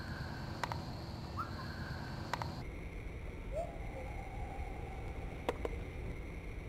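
Hiss of a night-time recording with short rising whistle-like chirps, each trailing into a faint held tone, and a few sharp clicks. A little over a third of the way in, the same audio repeats at half speed, so the chirps drop about an octave and come twice as far apart.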